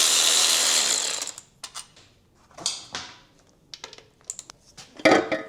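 A handheld power tool runs and winds down about a second in, as if backing out fasteners. Scattered ratchet-like clicks and metal clinks of tools and parts follow, the loudest about five seconds in.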